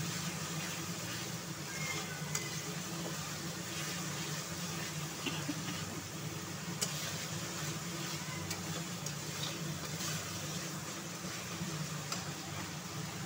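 Onion-tomato spice masala sizzling in oil in an aluminium kadai while a metal spatula stirs and scrapes through it, with a few sharp clinks of the spatula on the pan. A steady low hum runs underneath.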